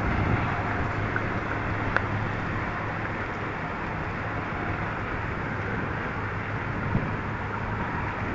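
Steady rain falling, with a couple of sharper drip taps about two seconds in and near the end, over a low steady hum.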